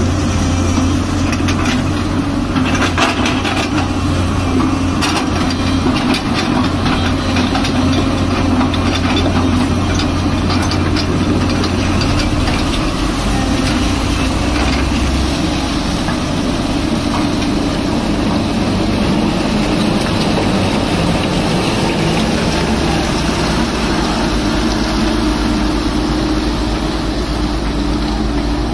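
Diesel engine of a Tata Hitachi crawler excavator running steadily while it digs in wet mud, with a few short knocks in the first several seconds.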